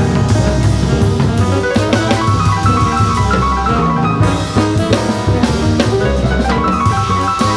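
Jazz band playing, with grand piano chords and runs over a drum kit keeping time.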